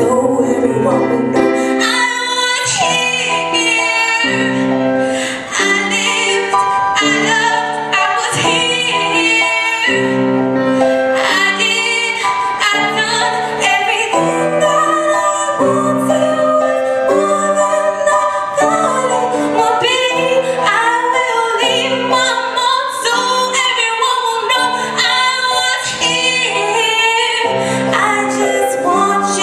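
A female singer performing a ballad live through a microphone, with vibrato on her held notes, accompanied by regularly repeated chords on an electric keyboard.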